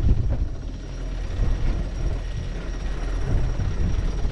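Wind buffeting the microphone in the cockpit of a sailboat under way, an uneven low rumble.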